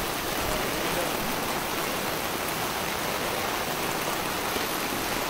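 Steady heavy rain falling on open floodwater, an even hiss.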